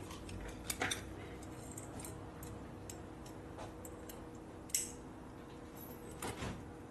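Scattered light clicks and taps of small hardware and parts being handled during motorcycle assembly, a few close together about a second in, a sharper one past the middle and two more near the end, over a faint steady hum.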